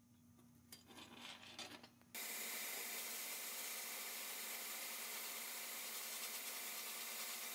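Faint scraping of rusty pressed-steel toy crane parts being handled. About two seconds in, this cuts abruptly to the steady hiss of abrasive blasting in a blast cabinet, the nozzle stripping old paint and rust from the toy's steel cab.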